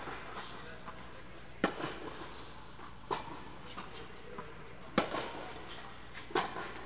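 Tennis rally: a ball struck by rackets and bouncing on a hard court, sharp pops about every second and a half, two of them louder than the rest, each echoing in a large indoor tennis dome.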